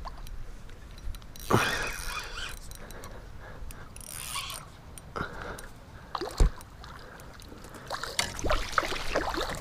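Water splashing and sloshing around a plastic kayak in a few short bursts while a hooked fish is played on a spinning rod, with a dull thump against the hull about six seconds in.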